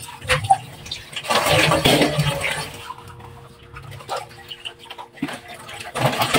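Kitchen tap running into a stainless steel bowl in the sink while dishes are washed by hand: splashing water with small clicks of the dishes being handled.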